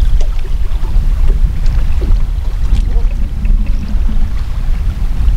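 Boat under way on a river: a steady, loud low rumble of wind buffeting the microphone and water rushing past the hull.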